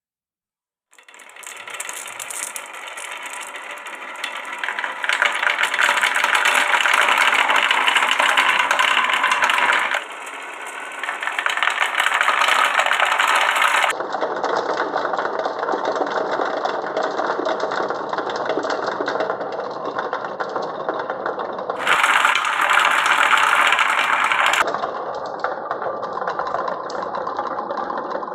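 Many marbles rolling and clattering down wooden marble-run slopes, a continuous dense rattle that starts about a second in and changes abruptly several times.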